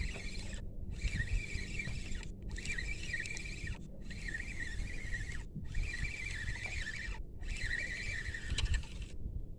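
Spinning reel being cranked under load as a hooked fish is reeled in: a high, wavering whine in stretches of about a second and a half, broken by short gaps, over a low rumble of wind and handling noise.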